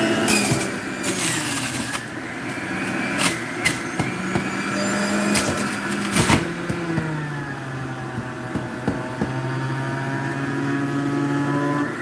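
Breville centrifugal juicer motor running at its top speed, its whine sagging in pitch and recovering as pineapple spears are pushed down the feed chute onto the spinning cutting disc, with a few sharp clacks along the way.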